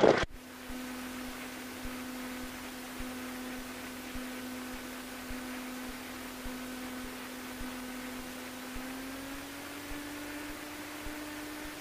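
Cessna 150 engine hum, faint and steady, heard through the cockpit intercom at low taxi power. Its pitch rises a little about nine seconds in as the throttle is opened.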